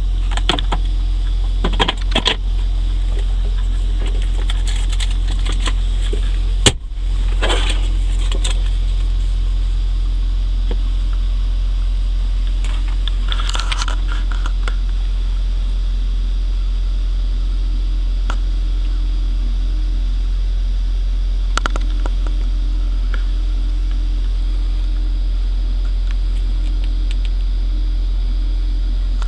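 Steady low rumble inside a pickup's cab, with scattered clicks and rustles of the centre console being handled and paper being shuffled, including one sharp click about seven seconds in.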